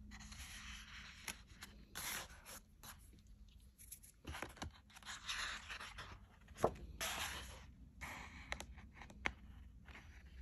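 Large, thick pages of an oversized art book being handled and turned: repeated paper rustling and swishing, with a few sharp taps, the loudest about two-thirds of the way through.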